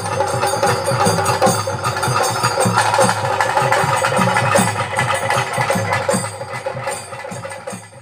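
Traditional bhuta kola ritual music: drums beat a quick steady rhythm under a held, droning wind-instrument melody. It fades out over the last second or two.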